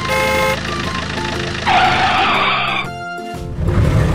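Cartoon sound effects for a toy car over light background music: a short toot at the start, then a tyre-skid screech lasting about a second in the middle. A low rumble comes in near the end.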